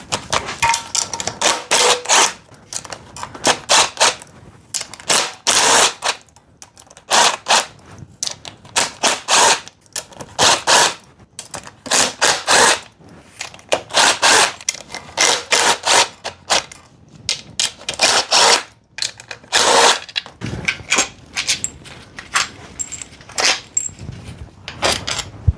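Socket ratchet clicking in repeated quick bursts as the valve cover bolts are backed out, with short pauses between strokes.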